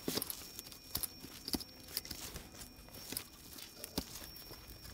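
Light, irregular clicks and taps from handling a furnace control board while working at one of its small plastic relay covers to get it off.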